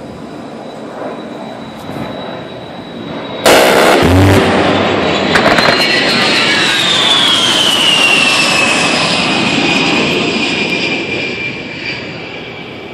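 A-10 Warthog's GAU-8 Avenger 30 mm rotary cannon firing a burst of about a second, a sudden loud ripping buzz, followed by the jet's twin turbofan engines going by with a high whine that falls in pitch as the aircraft passes, then fades.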